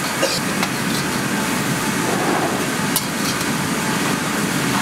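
Steady rushing background noise of a commercial kitchen, with a few light metal clinks as a perforated steel strainer ladle knocks against a steel bowl while draining oil, near the start and again about three seconds in.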